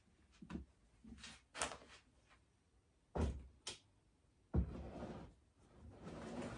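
Plastic enclosures and storage tubs being handled on a shelf: a few short clunks and knocks, then a louder knock followed by scraping about four and a half seconds in, and more scraping near the end.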